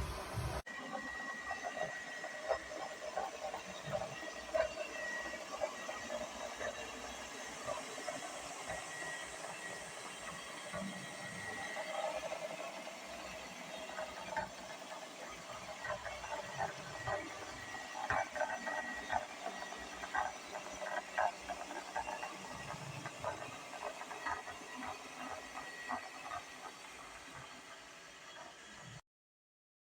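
Robot vacuum cleaner running: a steady hiss with a faint high whine, and scattered small clicks and ticks throughout. The sound cuts off abruptly near the end.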